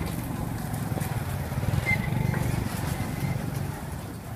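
Street traffic: a steady low rumble of passing vehicle engines, with a short high tone about two seconds in.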